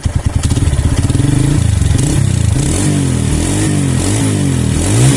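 Motorcycle engine running with a fast, even beat, then revved up and down repeatedly in quick throttle blips.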